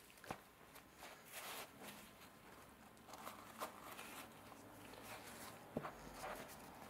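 Faint handling noises: soft rustling as gloved hands press upholstery padding flat and set a round disc on top of it, with a couple of light taps, one just after the start and one near the end.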